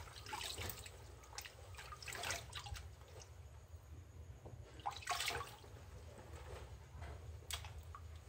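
Water sloshing and splashing in a plastic basin as two smartphones are rubbed and moved about under the water by hand, washing them. It comes in a few short bursts, the loudest about five seconds in.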